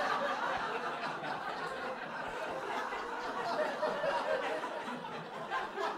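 Audience laughing in a comedy club, the laughter slowly fading.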